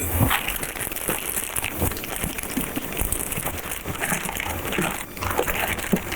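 Plastic packaging crinkling irregularly as it is handled, with small ticks and crackles.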